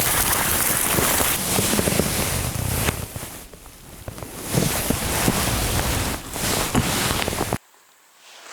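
Strong wind buffeting the microphone in a loud, uneven rush that eases briefly midway, then cuts off abruptly near the end.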